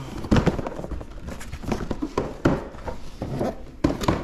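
Cardboard sneaker boxes being handled: a string of knocks, bumps and scuffs as the boxes are picked up, turned over and set down against one another.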